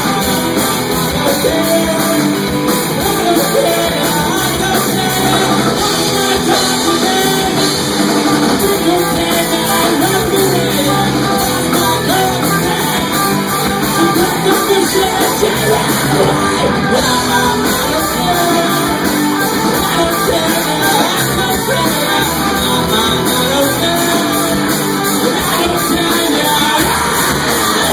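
Live rock band playing loudly with electric guitar, bass and drums, with a voice singing or shouting along.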